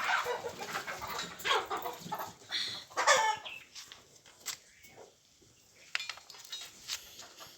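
Farmyard animals calling: a few short pitched cries falling in pitch in the first three seconds or so, then quieter scattered calls.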